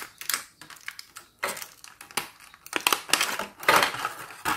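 Thin clear plastic blister tray crinkling and crackling in irregular bursts as tiny plastic toy cups are pushed and pried out of their moulded slots, a tight fit that makes them hard to get out.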